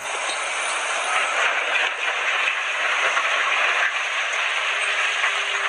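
A Caterpillar mining haul truck running, heard as a steady, even rush of noise with little deep rumble. It cuts in suddenly and cuts off suddenly just before the end.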